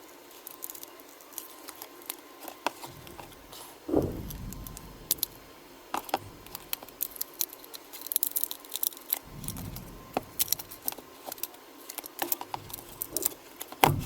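Small clicks, ticks and scrapes of prying tools working the cracked screen off a Samsung Galaxy J7 Pro's frame, with a louder knock about four seconds in.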